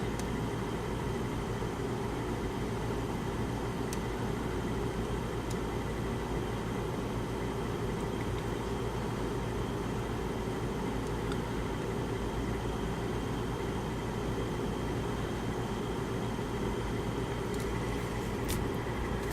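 Room air conditioner running steadily on its highest fan setting, a constant whooshing hum with a low drone, which the owner says is not cooling the room. A few faint clicks come near the end.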